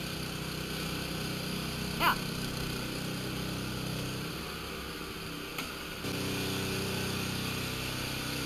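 A small engine running steadily, most likely the generator or boat motor of an electrofishing rig. Its note shifts about four seconds in and picks up again near six seconds, with one brief high squeak about two seconds in.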